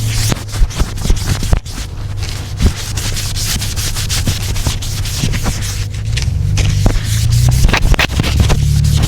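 Steady scrubbing and rubbing on a surface during cleaning, with many small clicks scattered through it, over a low steady hum.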